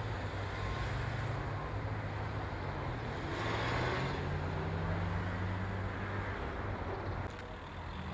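Road traffic, cars and a van driving over the level crossing: engine hum and tyre noise, with one vehicle passing loudest about halfway through.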